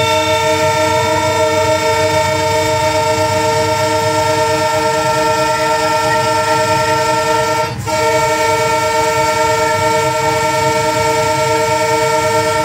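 Multi-note air horn of a GE Class 34 diesel-electric locomotive sounding long and steady, broken once for a moment about eight seconds in: the warning for a level crossing ahead.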